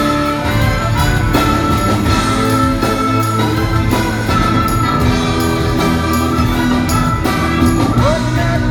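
Live rock band playing an instrumental passage, with sustained chords over a steady drum beat.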